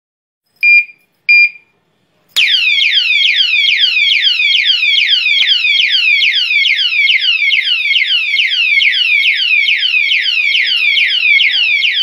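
Security alarm padlock sounding: two short beeps, then about two seconds in its loud electronic siren starts, a rapid run of falling sweeps at about two and a half a second, which stops at the very end.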